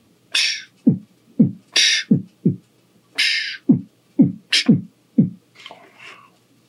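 A man beatboxing: kick-drum thumps made with the mouth, about eight of them, alternating with hissing snare sounds in a steady beat that stops about five and a half seconds in.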